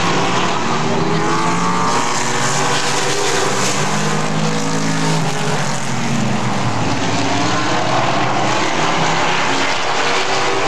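Super late model race cars' V8 engines running on the track. Several engine notes overlap, rising and falling as the cars accelerate, lift and pass by.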